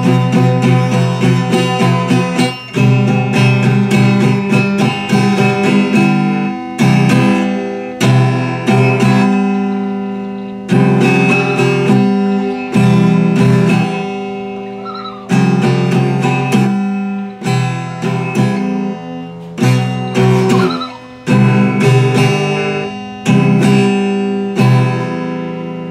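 Acoustic guitar being strummed. It starts with quick, even strumming, then moves on to single chords struck and left to ring and fade, changing chord every second or two.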